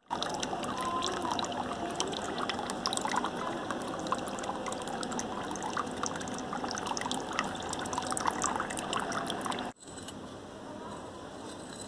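A thin stream of water from a miniature electric water pump's tube splashing and trickling into a small plastic tub of water. It cuts off suddenly near the end, leaving a quieter background.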